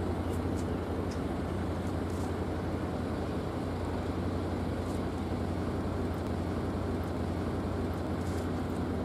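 Steady low hum of a running engine with an even background rush, and a few faint light clicks.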